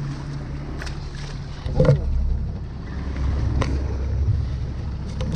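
Motorboat engines running close together: a steady engine hum, then about two seconds in a louder, deeper engine rumble as a water taxi turns in tight alongside an inflatable dinghy in a near-collision, with a few knocks.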